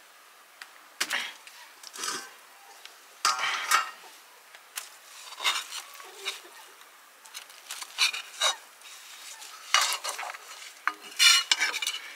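Metal spatula scraping and stirring in an iron kadai as an egg fritter is turned and lifted, with irregular scrapes about once a second over a faint sizzle of frying oil. The loudest scrapes come near the end.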